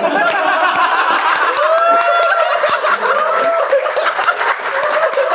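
Studio audience and people on set laughing loudly together, with a few voices crying out over the laughter and scattered claps.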